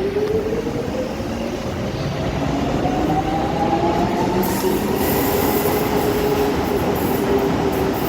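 Docklands Light Railway train's electric traction motors whining and rising in pitch as the train accelerates, over a steady wheel rumble; a higher hiss of rail noise comes in about halfway.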